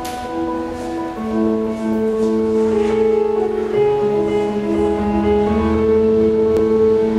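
Slow instrumental music of long held notes that change every second or so.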